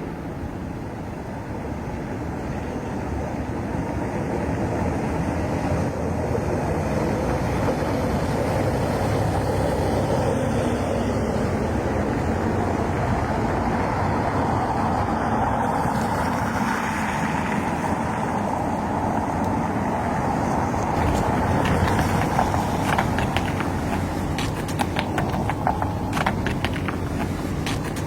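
Steady rumbling, hissing background noise that builds over the first few seconds, with a run of sharp clicks near the end.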